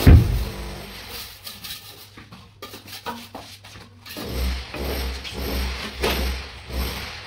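An engine off-screen winds down in pitch about the start, then runs again as a low pulsing rumble from about four seconds in. In between, a steel trowel scrapes and taps on wet cement mortar.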